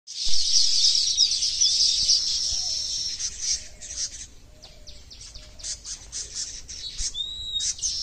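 Baya weaver colony chattering: a dense stream of high, buzzy chirps that thins after about three seconds into scattered separate chirps, with a single rising whistle near the end.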